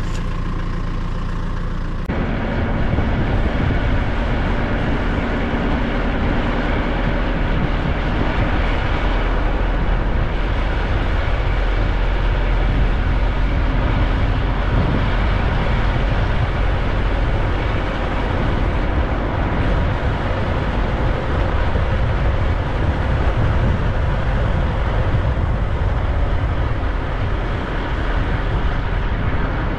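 A 1998 Mercedes-Benz Sprinter motorhome's engine running steadily, then about two seconds in a sudden change to a louder, steady rumble of the van driving on the road, with road and wind noise over the engine.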